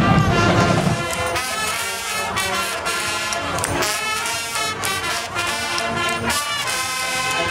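A marching carnival band playing brass with drums: sustained horn notes over regular drum strokes.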